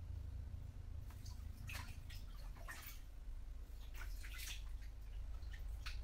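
Bath water dripping and lapping in small splashes in a bathtub as the bather shifts, starting about a second in and coming irregularly, over a steady low hum.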